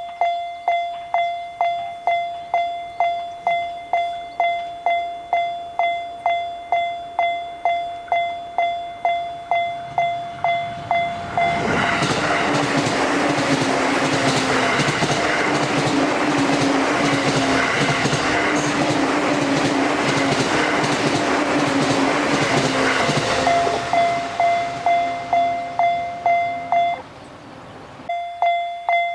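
Japanese railroad-crossing warning bell (the "kan-kan" alarm) ringing steadily about twice a second. About twelve seconds in, a JR Sobu Line electric train passes and its rolling wheels and running gear drown the bell for about twelve seconds. Near the end the bell stops for about a second and then starts again.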